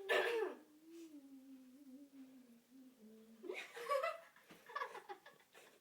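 A girl's voice: a short loud cry, then a long hummed note that slowly falls in pitch, breaking into giggly vocal bursts about three and a half seconds in.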